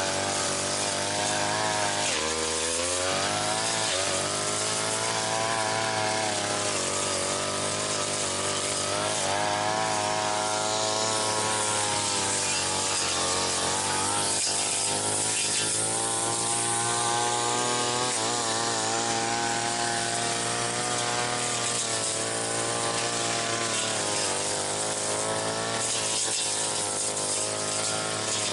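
Brush cutter engine running at high revs while cutting weeds and brush. Its pitch dips and recovers again and again as the blade meets the undergrowth, with deeper dips about 2 s and 4 s in and again around 14 and 18 s.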